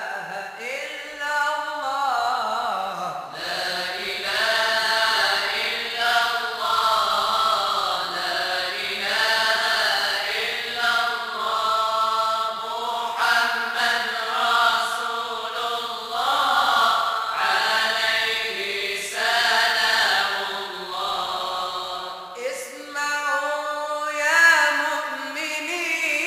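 Moroccan madih (praise of the Prophet) chanting: voices singing long, drawn-out melismatic lines that rise and fall, unaccompanied. A brief break near the end is followed by a new phrase.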